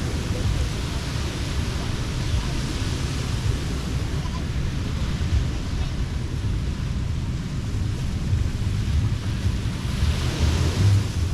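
Ocean surf washing onto the beach, swelling twice, about two seconds in and again near the end, over a steady low rumble of wind on the microphone.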